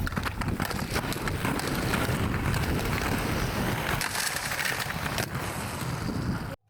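Skateboard wheels rolling over street pavement: a steady rumble with many small clicks. It cuts off suddenly near the end.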